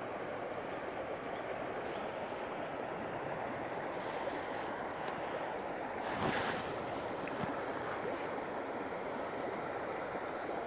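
Fast, high river in flood rushing steadily, a continuous wash of water noise, with a brief louder swell about six seconds in.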